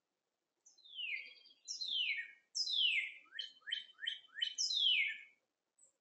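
A songbird singing one phrase of high, falling slurred notes, with a quick run of shorter falling notes in the middle, lasting about four and a half seconds.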